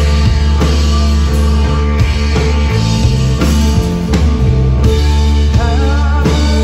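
Psychedelic stoner rock band playing live, with heavy sustained bass, guitar and a steady drum beat.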